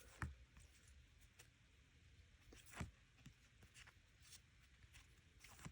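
Near silence with a few faint, short clicks and rustles of photocards and their plastic packs being handled.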